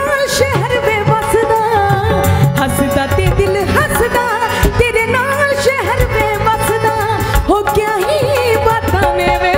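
A woman singing a Punjabi song live into a microphone, with ornamented, bending melodic runs. A band accompanies her with a steady drum beat.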